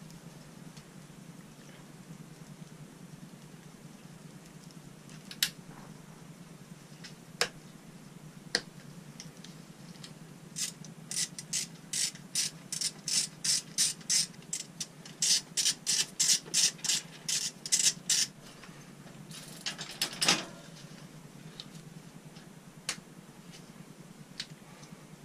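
A ratchet clicking: a few single clicks, then a fast run of clicks, about two to three a second, for some eight seconds, then a few more.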